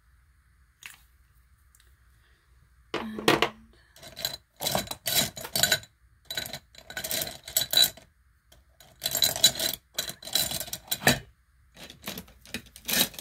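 Handling noise of makeup products being rummaged through: small containers clattering and knocking together, with fabric rustling close to the microphone, in irregular bursts starting about three seconds in.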